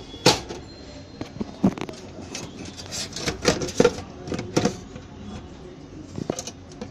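Irregular sharp clicks and knocks, about a dozen over several seconds, from hands handling parts inside a desktop PC's metal case.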